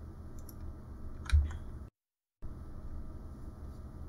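Faint computer keyboard and mouse clicks over a low steady hum, with one dull thump about a third of the way in. The sound cuts out completely for about half a second near the middle.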